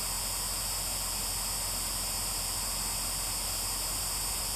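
Steady static-like hiss, even throughout, with no other sound standing out.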